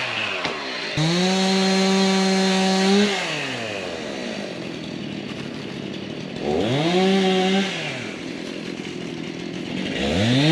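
Chainsaw revved to full throttle in bursts, held about two seconds and then about a second, falling back to idle between, with a third rev starting near the end: the saw cutting through brush or dead wood.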